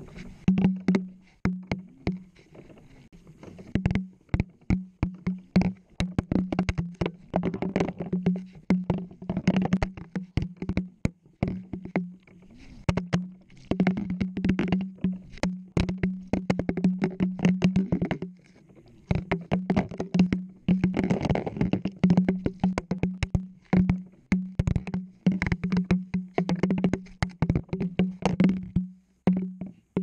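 Washing machine heard from inside its drum: a steady low motor hum under constant sharp knocks and clatter as the camera in its housing tumbles against the drum and the wash. The knocking eases off briefly twice.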